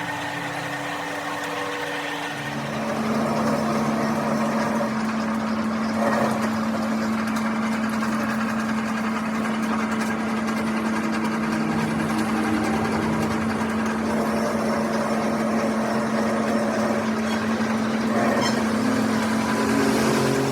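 A workshop machine's electric motor running steadily with a constant hum, which shifts to a slightly lower steady pitch about two and a half seconds in.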